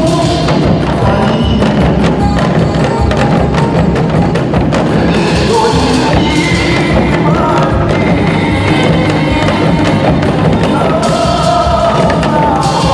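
Korean trot music with an ensemble of women beating Korean buk drums with sticks along to it, plus cymbal strikes, in a steady, even rhythm.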